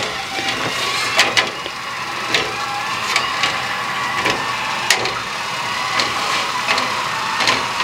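A canning jar lifter clinking against glass canning jars and the metal steam canner: several sharp clinks over a steady hiss.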